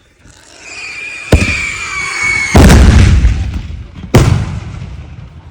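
Demonic Corona firework salutes going off: a rising hiss with a high whistle, a sharp crack, then a much louder, longer boom about two and a half seconds in, and another sharp bang about four seconds in.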